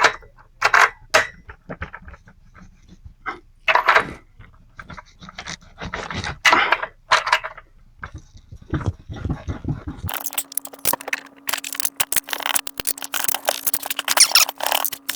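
Metal tools clicking and scraping against a chainsaw's stuck clutch drum as it is worked loose, in irregular bursts. About two-thirds of the way through, a steady low hum starts, with dense rapid clicking over it.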